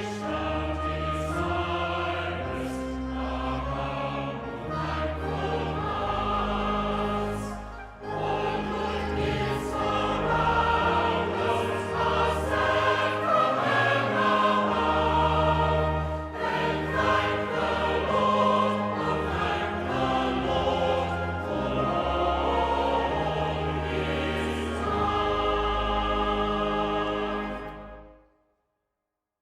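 A choir singing a hymn over instrumental accompaniment with a moving bass line, fading out near the end.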